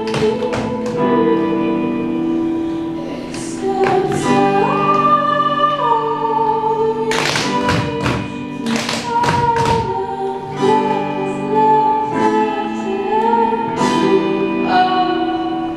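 Recorded song playing, a voice singing a melody over held chords, with a few sharp percussive hits scattered through it.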